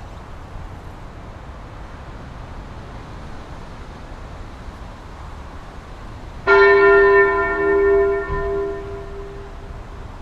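Low steady background noise, then about six and a half seconds in the TESLA UEAJ-600 electronic siren's horn loudspeakers sound a loud bell-like gong chime that rings out over about three seconds: the attention signal that comes before a spoken alert message.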